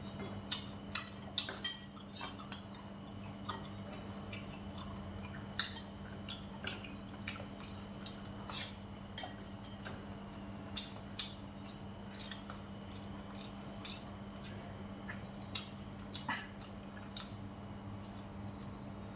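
Spoon and chopsticks clinking against a porcelain rice bowl while eating: a run of sharp, irregular clinks, loudest a little over a second in, over a steady low hum.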